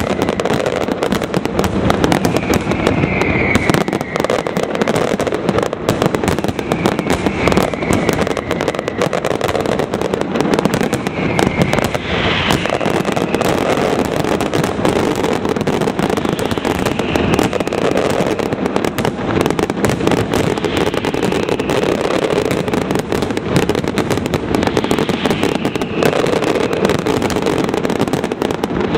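Dense, continuous barrage of aerial firework shells bursting and crackling, with a few short falling whistles over the top.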